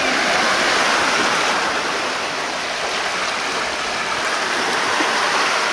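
Water rushing and churning past the stern of a sailing catamaran under way, a steady hiss.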